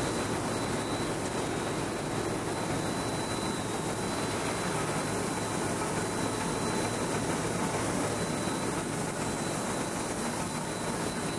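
Six-colour central impression flexo printing press running at speed: a steady mechanical hum and rush of rollers and moving film web, with a faint thin high whine held throughout.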